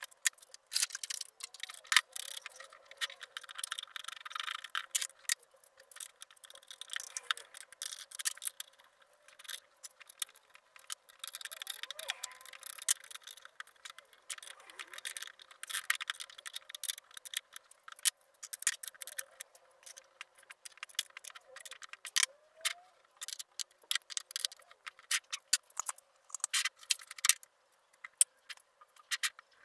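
Irregular clicks, taps and rattles of metal parts handled by hand as an angle grinder is fitted onto a homemade steel grinder stand; the grinder itself is not running.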